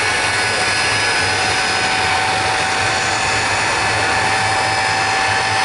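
Ilyushin Il-62 airliner's rear-mounted jet engines running on the ground: a loud, steady roar with several high whining tones held at a constant pitch.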